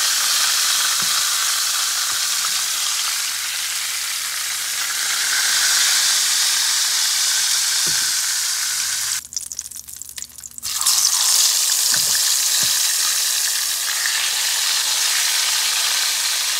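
Whole seasoned fish frying in hot oil in a frying pan: a steady, loud sizzle. It drops away about nine seconds in and comes back about a second and a half later.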